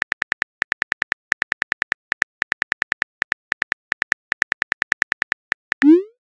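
Synthetic phone-keyboard typing clicks from the TextingStory app, many short quick taps as a message is typed. Near the end they stop and a short rising swoosh plays as the message is sent, the loudest sound here.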